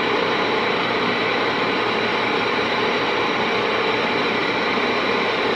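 Steady static hiss from a Galaxy radio's speaker on receive, the band noise left when no station is coming through strongly.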